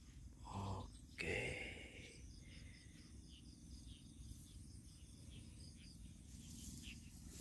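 Faint night insects chirping in a steady, evenly repeating pulse, with two brief louder sounds in the first two seconds.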